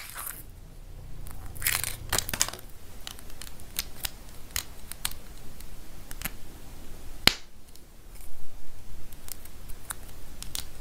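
Small plastic toy parts being handled and pressed together, with scattered clicks and taps and one sharp snap about seven seconds in. A short paper crinkle comes about two seconds in.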